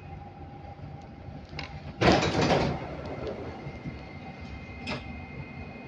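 Dubai Metro train cabin humming steadily while standing, with a short loud rush of hissing noise about two seconds in that lasts under a second. Afterwards a faint steady high-pitched tone sounds over the hum.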